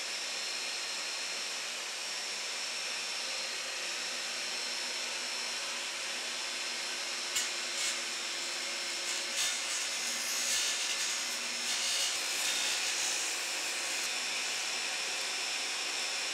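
Table saw with a dado head running steadily with a high whine. About seven seconds in, the dado head starts cutting into the end of a wooden baluster as it is turned in the jig, a rough, uneven chatter for about six seconds, before the saw runs free again.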